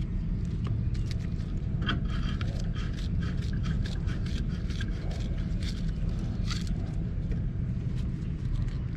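Galvanized steel pipe fittings being handled and worked at the threads: a quick run of small metallic clicks and scrapes from about two seconds in, fading out near seven seconds, over a steady low rumble.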